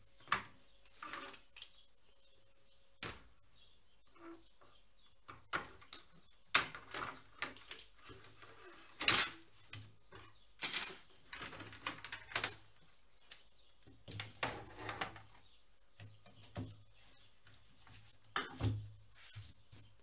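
Plastic clicks, knocks and rattles of a Razer BlackWidow Ultimate mechanical keyboard being handled as its top case is separated from the switch plate and the parts are set down, the loudest knock about nine seconds in.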